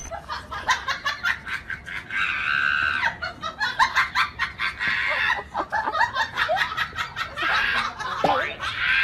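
Battery-powered crawling toy soldier running: rapid clattering clicks from its crawling mechanism, with short hissy bursts of its electronic sound effects at intervals.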